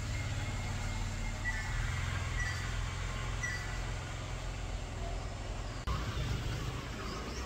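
Steady low mechanical hum, like a motor or engine running, with a few faint short high chirps in the first few seconds.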